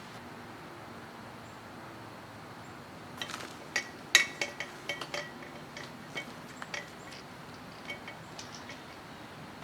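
Light metallic clinks and taps from small metal parts or tools being handled, a scattered run of about a dozen, some with a short ring. The loudest comes about four seconds in.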